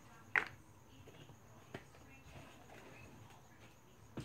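A single sharp plastic knock, then a fainter click, over quiet room tone: the plastic glue jug being moved and set down on the table.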